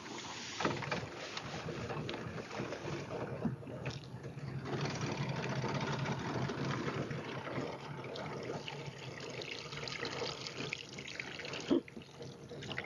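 River water splashing and trickling, with a few short knocks.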